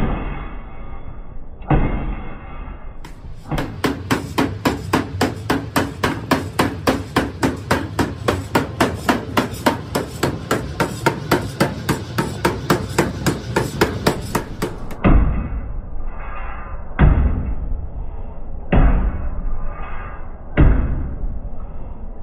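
Power hammer forging a red-hot steel billet in a die, metal striking metal. A few single blows, then a fast even run of about three blows a second, then heavy single blows about every two seconds.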